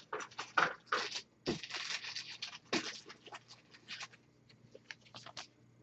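Trading cards and a clear plastic card sleeve being handled by hand: a quick run of short rustles, slides and scrapes that thins out over the last couple of seconds.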